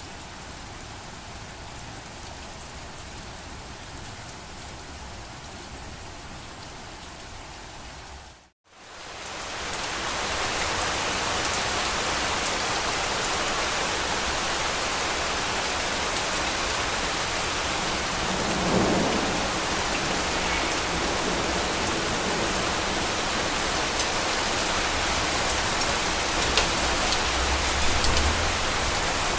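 Steady rain that cuts out abruptly about a third of the way in, then heavier, louder rain, with low rumbles of thunder twice in the second half.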